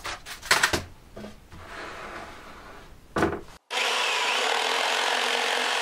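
Knocks and clatter of a fold-down MDF desk top being handled, loudest about half a second in. About three and a half seconds in, a sudden cut to a loud, steady rasping noise of wood being worked.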